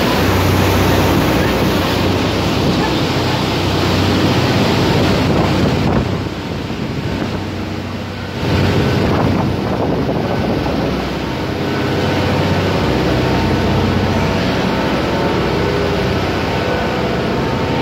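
Water rushing in a moving boat's wake and wind buffeting the microphone, over the steady low hum of the boat's engine; it eases for a couple of seconds about six seconds in.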